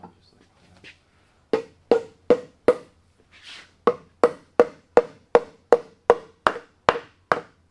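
Mallet blows on oak, knocking a mortise and tenon joint together: four sharp knocks, a short pause, then about ten steady knocks a little under three a second, each with a short woody ring.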